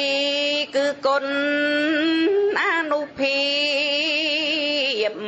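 A single voice chanting in long, drawn-out notes with a wavering pitch and brief pauses between phrases: Khmer Buddhist chanting.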